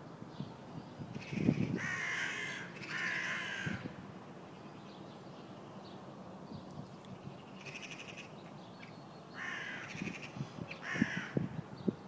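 Crows cawing: harsh calls, a pair between one and four seconds in and three more in the last third. A few dull low thumps come with the calls.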